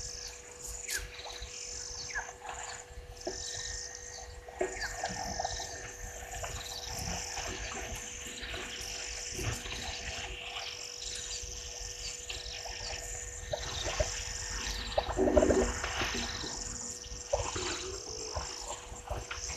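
Bushveld ambience: insects trilling in on-off pulses high up over a steady hum, with scattered short bird chirps. About 15 s in comes a louder, short call with a deep layered tone.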